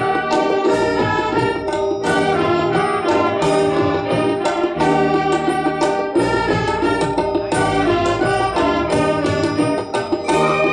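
Large wind band of saxophones and trumpets playing a piece together in full ensemble, with sustained chords over a steady beat.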